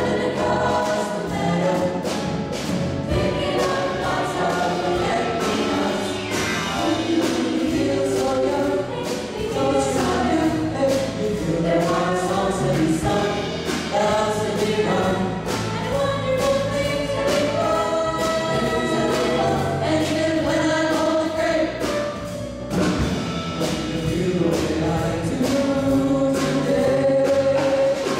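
Vocal jazz choir singing in close harmony through handheld microphones, backed by bass guitar and drums in a swing arrangement.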